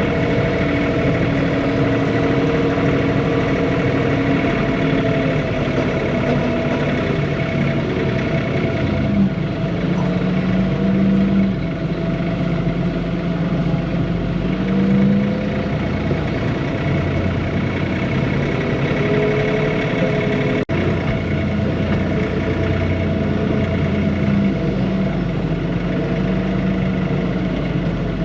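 John Deere 3046R compact tractor's diesel engine running, heard from inside the cab, its engine speed rising and falling several times as the tractor works.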